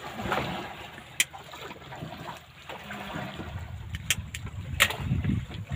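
Sea water sloshing against the side of a wooden fishing boat, with a few sharp clicks or knocks, the loudest near the end.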